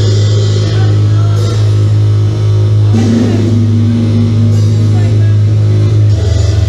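Loud experimental electronic drone music played live on DIY synthesizers: a heavy steady bass drone with a higher tone and short bursts of hiss over it. About six seconds in, the bass drone changes into a fast pulsing.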